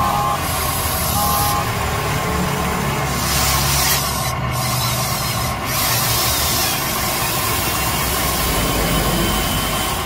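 Huina remote-control excavator's electric motors and gearboxes running with a rasping grind as the boom and bucket move, briefly stopping twice near the middle.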